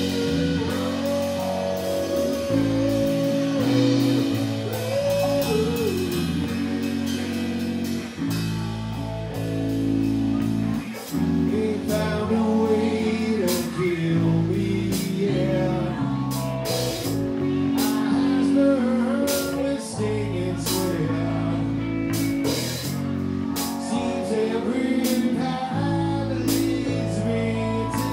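Live rock band playing a song: a man singing lead over electric guitar, electric bass guitar and a drum kit with steady cymbal hits.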